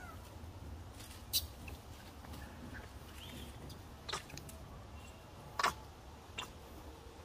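Quiet outdoor ambience: a low steady rumble with a few faint, short, high chirps and four sharp clicks spread through it.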